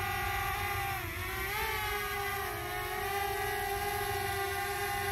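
Small quadcopter drone's propellers whining steadily, the pitch dipping and rising briefly about a second in and again a little later as the motors change speed to manoeuvre.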